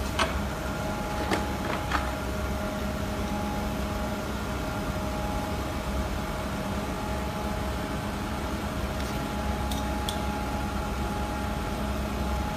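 Steady mechanical hum with a few fixed tones, with a few sharp metal clicks from hand tools and clamp-plate hardware being handled: three in the first two seconds and two more about ten seconds in.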